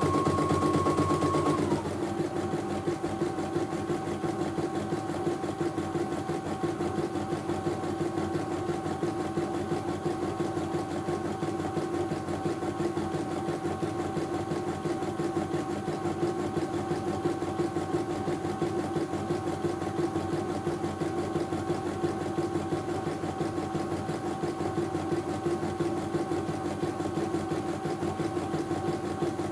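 CNY E900 computerized embroidery machine stitching a design in its hoop: a rapid, steady needle clatter over a motor whine. The whine drops to a lower pitch about two seconds in and then holds steady.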